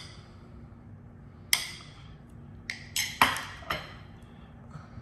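A metal spoon clinking against a ceramic bowl while diced tomatoes are spooned out: one sharp clink about a second and a half in, then a quick run of clinks and knocks around three seconds in.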